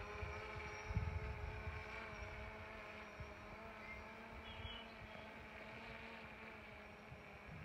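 DJI Phantom 4 quadcopter's motors and propellers buzzing in flight, a steady whine of several tones that grows slightly fainter as it climbs away. Low rumbles hit the microphone now and then, strongest about a second in.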